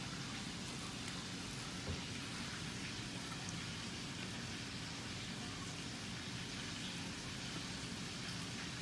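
Steady hiss of cooking oil sizzling in a frying pan, with a light tap about two seconds in.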